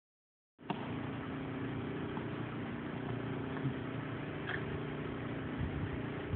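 A steady, low engine hum, as from an idling vehicle, with a few faint clicks over it. It starts about half a second in.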